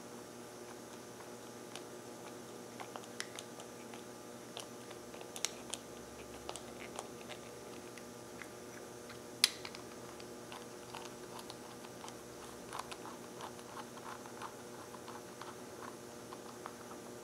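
Small clicks and ticks of a nut driver engaging and turning the assembly bolts of an outboard fuel pump body as they are run in snug by hand, with one sharper click about nine seconds in and a run of quick light clicks after it. A steady electrical hum lies underneath.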